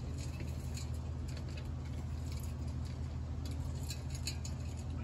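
Steady low machine hum, with faint scattered small clicks and ticks over it.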